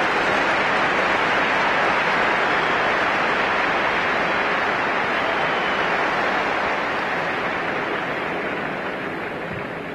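Large stadium crowd cheering and applauding at the finish of a sprint race: a steady, dense wash of noise that slowly fades over the last few seconds.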